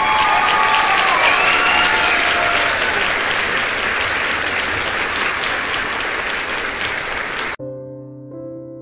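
Crowd applause and cheering added in the edit, with a few whoops falling in pitch in the first seconds. It cuts off suddenly about a second before the end, where soft piano music begins.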